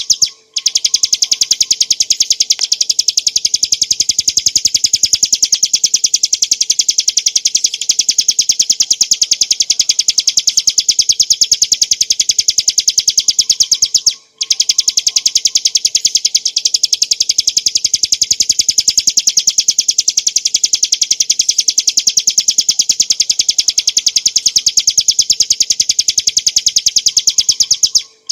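Ciblek gunung, a small prinia, singing a continuous, very rapid trill of high, evenly repeated notes. The trill breaks off briefly about half a second in and again near the middle.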